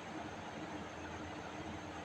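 Faint steady hiss of background noise with a low hum, and no distinct events.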